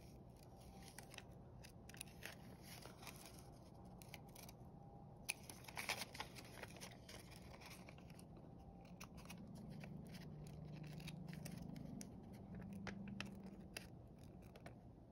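Small scissors snipping through folded paper, faint scattered snips with a few louder cuts about five to six seconds in.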